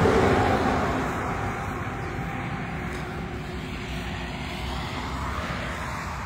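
Road traffic going by: tyre and engine noise from a passing vehicle swells at the start and fades over a couple of seconds into a steady rush of traffic noise.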